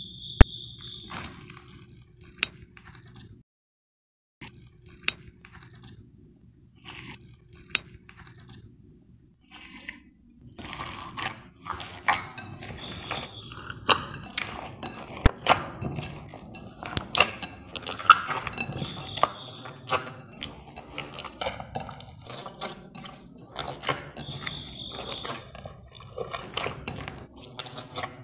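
Hands pressing and squishing in a glass bowl: at first sparse crunchy clicks from pink foam beads, then from about ten seconds in a dense, continuous run of wet crackles and small pops as glittery red slime is kneaded.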